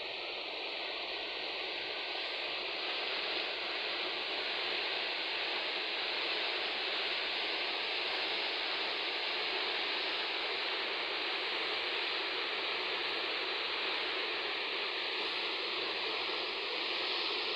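Fast, muddy river water rushing and churning against its bank: a steady, unbroken rush of moving water.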